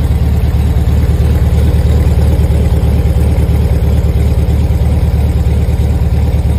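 Car engine idling steadily through a MAF M Klass aftermarket exhaust, a loud, even, deep exhaust note.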